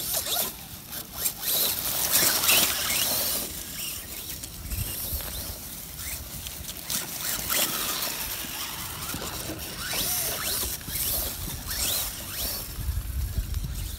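Scale RC crawler truck driving over dry fallen leaves and grass: its tyres crackle and rustle through the leaf litter, with many small clicks and several brief high squeaks.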